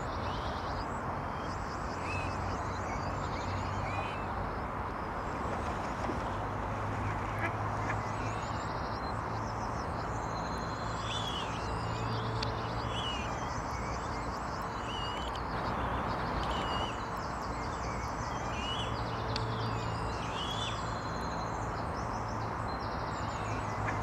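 Many short, high chirping bird calls over a steady rushing noise, with a low hum that swells every few seconds and a faint held tone through the middle.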